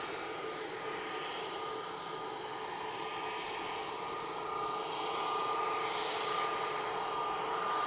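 Airbus A320neo's CFM LEAP-1A turbofan engines at taxi idle as the airliner taxies toward the listener: a steady whine over a rushing hiss, growing slightly louder over the last few seconds.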